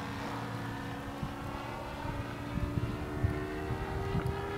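Distant RC model airplane's Magnum .53 four-stroke glow engine running in flight, a steady drone whose pitch rises slowly.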